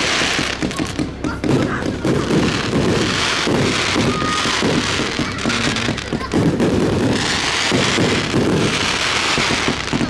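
Aerial fireworks display going off in a rapid barrage: many overlapping bursts and thumps, with waves of crackling that swell and fade about every three to four seconds.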